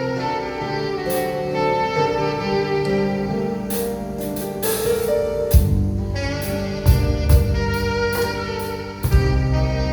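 Live band music: an alto saxophone plays a held melody over keyboard, and the drum kit comes in more strongly about five and a half seconds in, with cymbal strokes and kick-drum hits.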